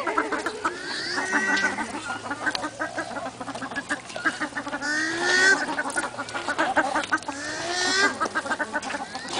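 Birds calling: runs of rapid short notes, with repeated calls that rise in pitch every few seconds.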